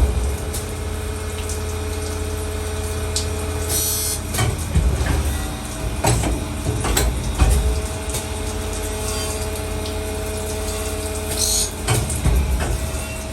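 Automatic CNC saw-blade grinding machine running: a steady motor hum with a whine, several sharp knocks and clunks, and two brief hissing bursts about eight seconds apart.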